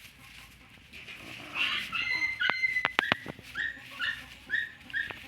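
Dog whimpering in a run of short, high whines, about two a second, starting a second and a half in, with a few sharp clicks among them.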